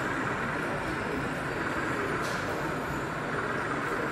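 OO gauge model train rolling along its track, heard against steady background noise of a busy exhibition hall.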